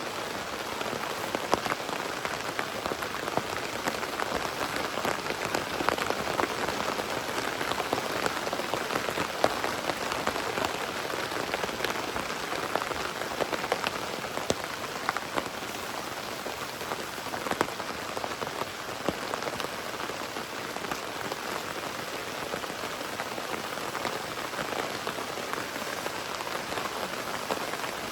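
Hard rain falling on the tent overhead: a steady, dense hiss of many small drop hits.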